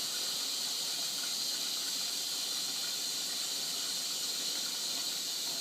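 Bendix 7128 washing machine running with a steady hiss that holds level throughout, with no tumbling thuds or knocks.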